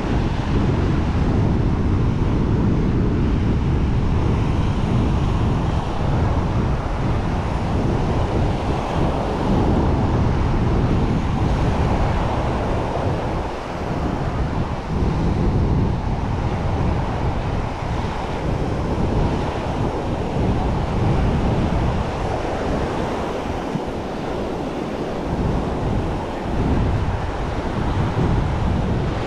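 Sea surf breaking and washing up on a sandy beach, with gusty wind buffeting the microphone.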